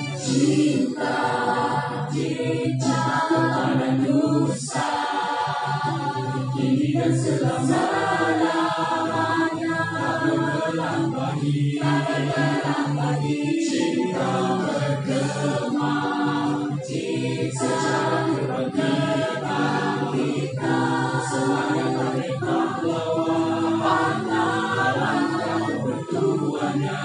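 Music with a choir of voices singing over a steady instrumental backing.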